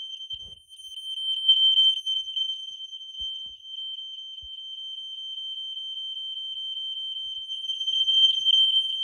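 Fire alarm horn set to 3000 hertz, sounding one continuous, high-pitched tone with a rapid flutter. It measures about 103 decibels at ten feet. A few faint knocks sound under it.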